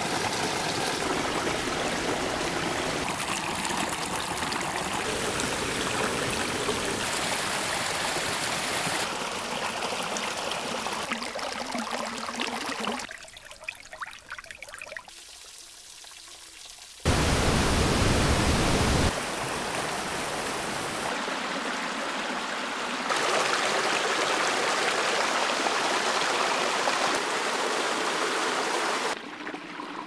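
Running water from small woodland waterfalls and streams, a steady rushing and trickling that changes abruptly every few seconds from one flow to another. About halfway through it drops for a few seconds to a quieter trickle with a few separate drips, then briefly turns to a louder, deeper rush.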